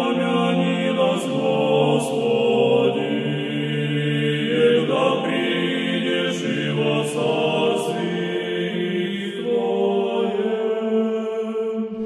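Choir singing slow, sustained chords without instruments, in the manner of Russian Orthodox church music, the chords shifting every few seconds.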